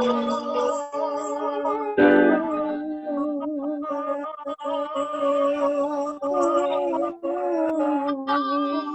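Choir voices each holding one long note of a G-major chord, sung together over a video call, the notes steady with a slight waver. A piano chord sounds about two seconds in.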